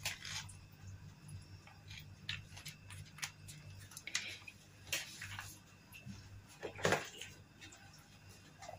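A plastic packet crinkling as it is handled, with scattered light clicks and knocks of dishes and utensils; the loudest knock comes about 7 seconds in. A low steady hum runs underneath.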